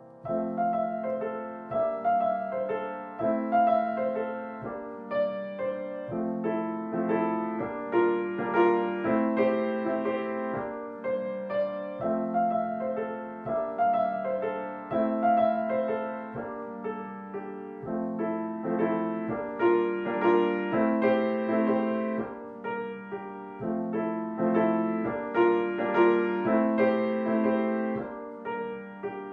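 Solo grand piano playing a jazzy waltz: left-hand bass and chords under a right-hand melody, notes struck and left to ring in a steady lilting meter.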